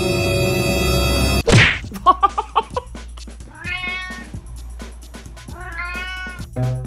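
Held music chord that cuts off, a whoosh, then a run of quick clicks and short plinks with two drawn-out cat meows, each rising then falling in pitch, about two seconds apart.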